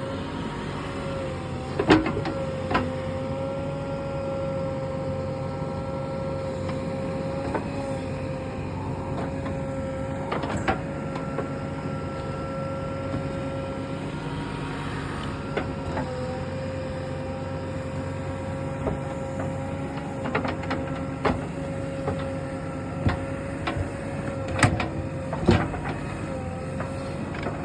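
JCB 3DX backhoe loader running steadily with a whining tone from its engine and hydraulics, which dips briefly about halfway through. Several sharp clanks and knocks ring out over it, the loudest about two seconds in and two more near the end.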